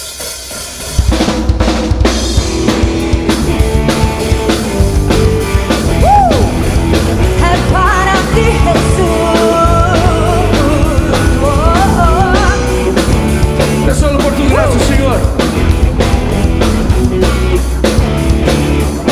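A live band plays the instrumental opening of a worship song, with drum kit, bass and a melody line over the top. The full band comes in loudly about a second in.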